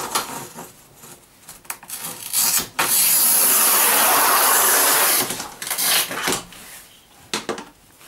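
Tile cutter's scoring wheel drawn along a large-format porcelain stoneware tile, giving one steady scratching run of about two seconds starting about three seconds in. Knocks and clatter come before and after it as the tile and cutter are handled.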